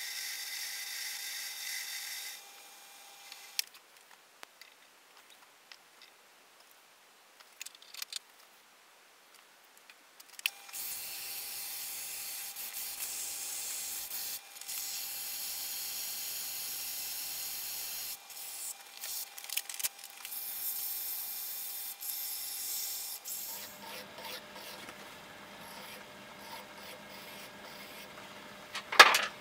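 Metal lathe running with an aluminium bar turning in the chuck: a steady hiss with a thin whine. It goes quiet for several seconds with a few clicks, then runs again. Near the end a flat hand file rubs on the spinning work, with one sharp loud knock just before the end.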